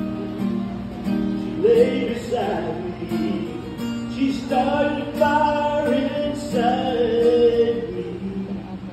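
Acoustic guitar strummed, with a man singing a country song in three drawn-out phrases over it.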